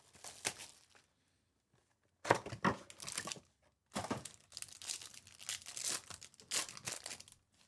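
Plastic and foil wrappers of a trading-card box and pack crinkling and tearing as the foil pack is ripped open by hand. The sound comes in short bursts, with a quiet gap of over a second about a second in.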